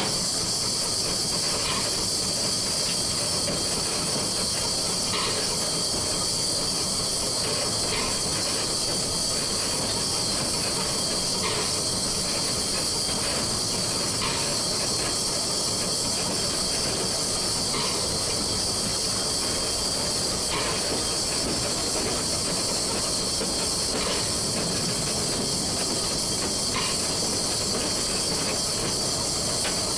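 Steady steam hiss in the cab of a 1925 La Meuse steam locomotive, with a faint click about every three seconds.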